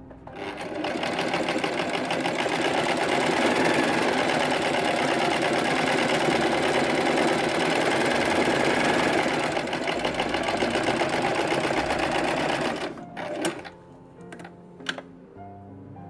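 Electric sewing machine running continuously at a fast, even stitch for about twelve seconds, then stopping suddenly, followed by a few sharp clicks.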